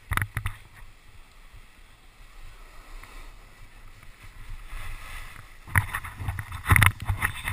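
Snowboard sliding over slushy snow with a steady hiss. There are louder scraping rushes at the start and again between about six and seven seconds in, as the board's edge cuts into the slush in a turn.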